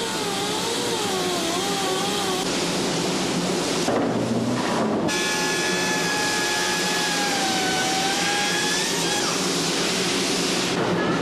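Power tools machining a moulded glass-fibre composite part. First a machine cutting spindle whines with a pitch that wavers as it cuts. After a break about four to five seconds in, a hand-held disc grinder whines more steadily as it trims the part's edge.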